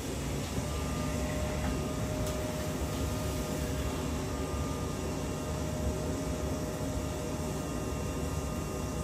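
Glow-worm Micracom combi boiler running on hot-water demand: a steady hum and rush from its fan and burner, with a faint steady whine that comes in about half a second in.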